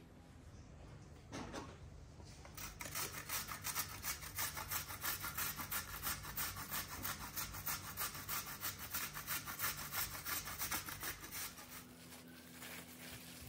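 Carrot being grated on a metal box grater: even rasping strokes about three a second, stopping near the end, followed by a softer rustle of plastic film.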